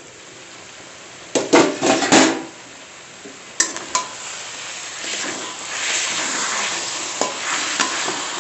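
A metal plate used as a lid is lifted off a metal kadai with several loud clanks about a second and a half in. A metal spatula then scrapes and turns the chicken pieces in the pan while the thick masala sizzles steadily.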